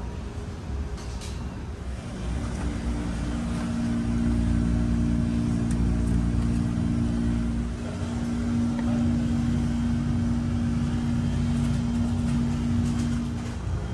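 Steady low drone of the ferry's engines running underway. A steady two-tone hum joins it about two seconds in and stops near the end.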